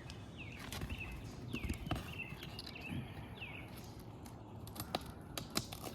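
Birds chirping in short falling calls, with a few sharp snaps and clicks from a brittle asphalt shingle being pried up off the roof.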